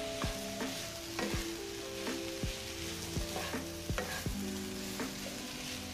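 Chicken and vegetables (carrots, onions, cabbage, pepper) sizzling in a frying pan while being stirred together, half-cooking for a pie filling. The spoon clicks and knocks against the pan about twice a second.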